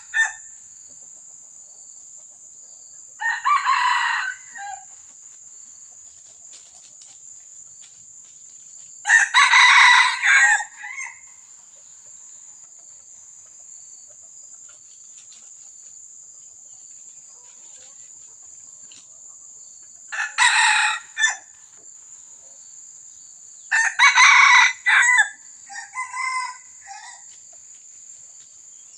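Red junglefowl rooster crowing about four times, several seconds apart, each crow short and clipped. The last crow is followed by a shorter broken call. A steady high-pitched insect drone runs underneath.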